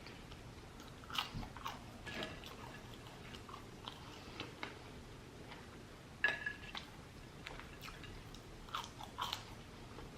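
Close-miked biting and chewing of crisp fried food, a handful of short crunches in loose pairs.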